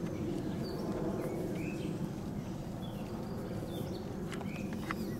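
Birds chirping in short calls, about one a second, over a steady low rustling noise, with a few sharp clicks near the end.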